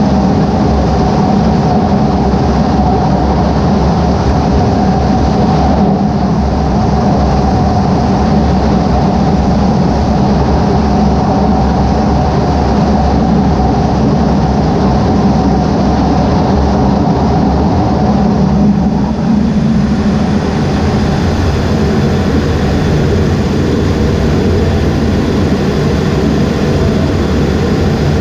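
The EA-18G Growler's twin General Electric F414 turbofan engines running steadily at high power, heard from inside the cockpit while the jet waits on the catapult. The engine sound changes about twenty seconds in.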